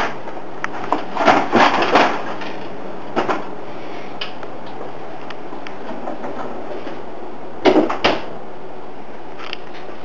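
Bottom freezer drawer of a Maytag refrigerator being handled: a cluster of rattles and knocks from the wire basket and plastic trays about a second in and a single knock near three seconds, then two loud clunks near the end as the drawer is pushed shut.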